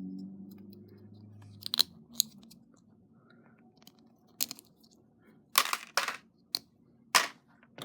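Sharp plastic clicks and clacks, about seven in all, from a mechanical keyboard switch being worked with a 3D-printed switch opener.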